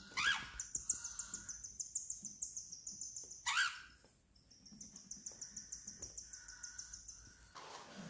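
Cockatiel chicks giving a fast, high-pitched chattering call, repeated many times a second, with two louder cockatiel calls that slide down in pitch, one at the start and one about three and a half seconds in. The chatter stops shortly before the end.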